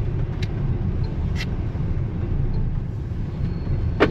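Steady low road and tyre rumble inside the cabin of a BYD Seagull electric car on the move, with no engine sound, and a few light clicks, the sharpest near the end.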